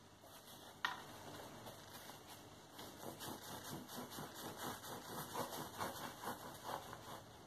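A kitchen knife sawing through the crust of a soft bread roll, short rasping strokes at about three a second. A single sharp click comes just under a second in.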